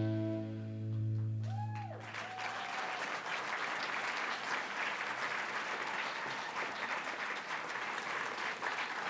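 Closing film music holding a low sustained chord, fading out over the first two seconds or so. An audience then applauds steadily.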